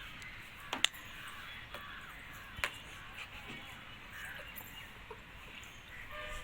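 Faint bird calls in the background, with two sharp clicks about a second apart near the start, the first the louder.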